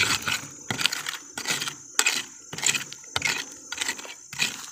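A thin metal rod raking and scraping through stony, gravelly soil in quick repeated strokes, about three every two seconds, flicking pebbles and grit aside to dig for buried mushrooms.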